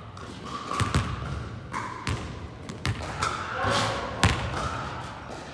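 Basketballs bouncing on a sports-hall court during shooting practice: several sharp thuds at irregular intervals, each echoing in the large hall.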